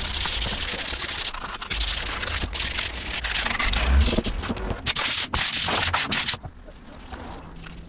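Wood being sanded: a rough, rasping scrape made of irregular strokes that stops about six and a half seconds in, leaving much quieter sound.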